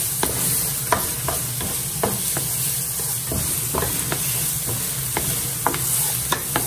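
Diced carrots and onion sizzling in hot oil in a frying pan, stirred with a wooden spatula that taps and scrapes the pan a few times a second.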